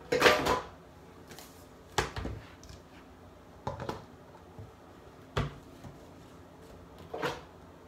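Short knocks and clatters of small objects being picked up and set down on a hard counter, about five of them spread out, the first the loudest.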